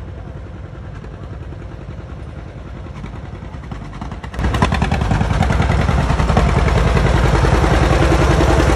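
Green John Deere farm tractor engine running as the tractor drives by at close range, with a steady, even firing beat. It gets much louder about four and a half seconds in as the tractor comes up alongside.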